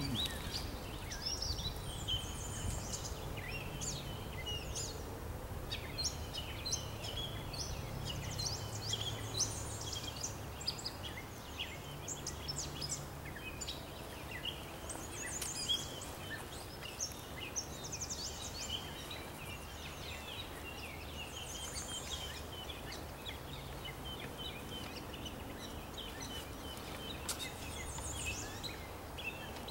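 Wild songbirds calling: many short chirps and quick trills, scattered through the whole stretch, over a low steady rumble.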